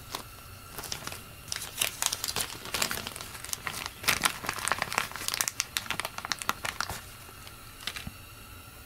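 Plastic packaging of a carburetor seal kit being crinkled and handled to get the new rubber shutoff disc out. It is a rapid run of crackles starting a second or so in and stopping about seven seconds in.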